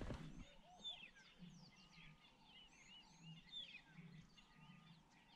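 Faint dawn chorus of small birds chirping and whistling, under which distant lions roar as low, drawn-out moans that come and go. A brief knock right at the start.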